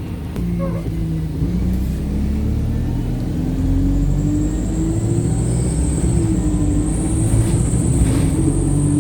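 Optare Streetlite single-deck bus's diesel engine pulling as the bus accelerates, heard from on board. The engine note rises through the first half, falls back briefly, then climbs again, and a high whine joins about four seconds in.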